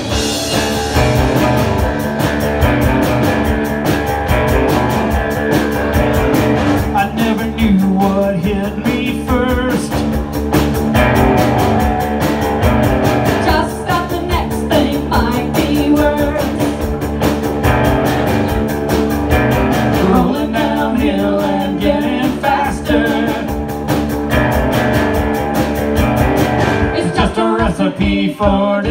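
Two-piece rock band playing live: electric guitar and drum kit playing a rock song together.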